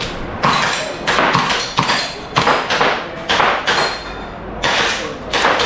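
Airsoft rifle fired in single shots, about eight at uneven intervals, each with a short echo.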